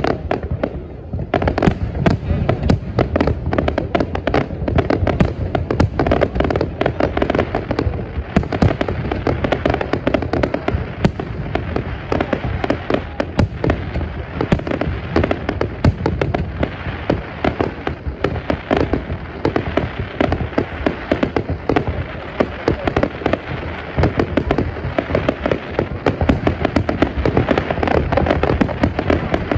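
Fireworks display: a dense, continuous barrage of bangs and crackling shells going off in quick succession.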